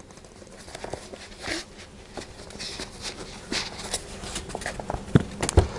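Rustling and light clicks and knocks of a tablet's folding keyboard case being handled and opened out, with a couple of sharper knocks near the end.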